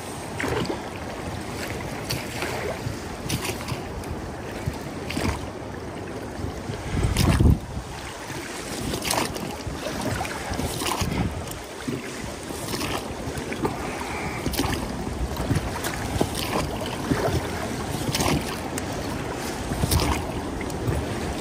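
River water rushing and splashing around a small boat on rough water in rapids, with wind buffeting the microphone. There is a heavy low thump about seven seconds in and another at the very end.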